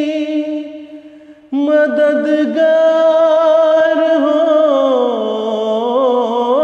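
A man singing an Urdu nazm (devotional poem) in a slow, drawn-out melody. A held, wavering note fades out, then about a second and a half in a new line begins ('madadgaar'), its long phrase dipping lower near the end and rising again.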